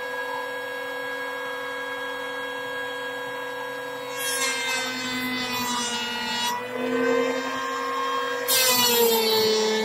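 Electric hand planer mounted upside down as a jointer, its motor running with a steady whine. About four seconds in, and again near the end, a board's edge is fed across the cutter, truing the edge square. Each pass adds the louder hiss of the blades cutting wood and pulls the motor's pitch down slightly under load.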